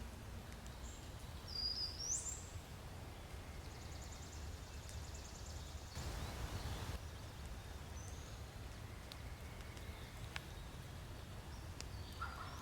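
Wild songbirds calling over a low, steady background rumble: a rising whistled note about two seconds in, then a rapid high trill around five seconds and a few short chirps. A brief hiss about six seconds in.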